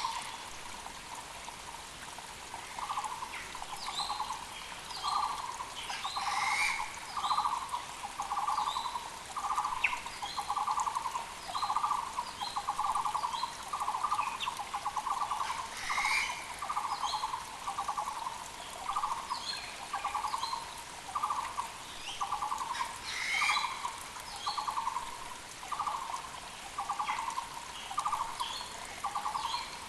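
Taiwan barbet (Muller's barbet) singing its steady, repetitive song of short trilled notes, a little more than one a second. Other forest birds chirp higher and more sparsely, over a faint hiss of the mountain creek.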